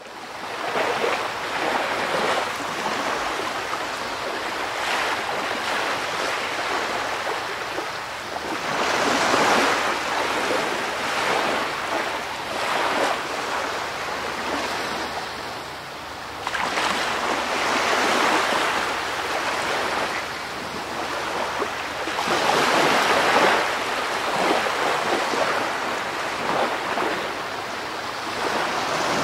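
Waves washing on a shore, mixed with wind noise, the rush swelling and easing every few seconds.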